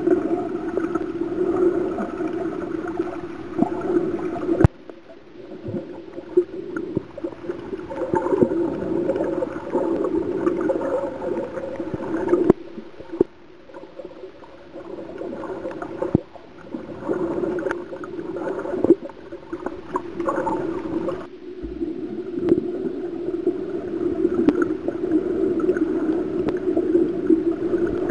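Muffled underwater sound picked up by a submerged camera: a steady low hum with overtones, mixed with gurgling water. It cuts out abruptly a few times and returns a few seconds later.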